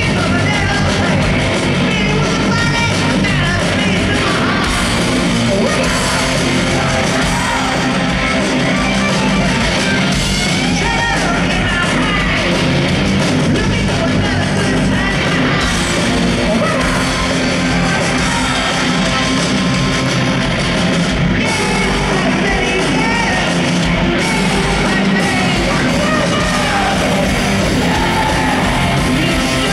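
Hard rock band playing live through a stadium PA: distorted electric guitars, drums and a shouted lead vocal at full volume, recorded from within the crowd.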